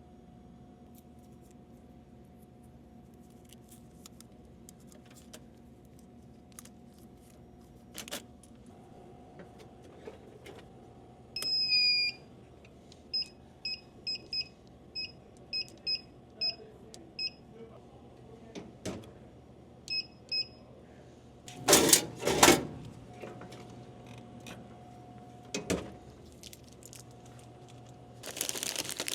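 Electronic keypad beeps from a vending machine, as its buttons are pressed: one longer beep, then a quick run of about ten short beeps and two more, over a low steady hum. A loud clatter comes about two-thirds of the way in, and plastic crinkling starts near the end.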